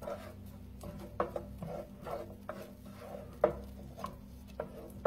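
Onion being stirred in a frying pan with a utensil, which knocks and scrapes against the pan about twice a second, over a steady low hum.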